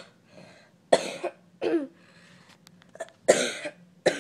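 A person with a cold coughing four times in short, sharp coughs, two close together, then a pause, then two more.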